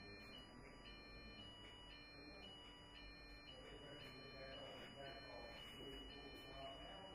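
Near silence: faint steady electronic tones that step on and off over a low hum, with faint voices in the second half.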